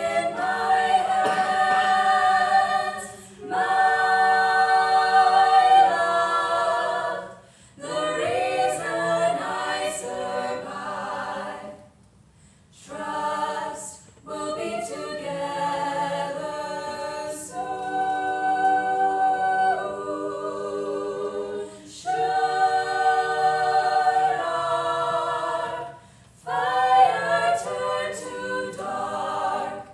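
All-female a cappella group singing: a soloist over the others' sung backing harmonies, with held chords in phrases broken by brief pauses.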